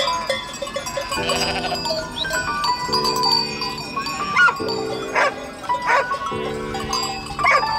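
A large flock of sheep bleating, several calls overlapping, over many bells ringing.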